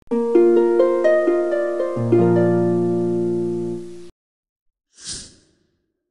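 Harp-like plucked music cue: single notes climbing one after another for about four seconds, with a low bass note joining halfway, then cut off. About a second later comes a short breathy rush of noise.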